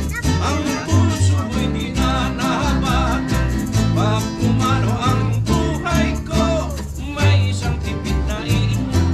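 A live band playing a song: guitar accompaniment under a singing voice with a wavering melody.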